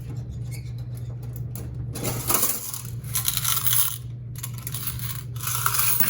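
Quarters clattering and jingling, poured or handled in several bursts over a few seconds, over a steady low hum.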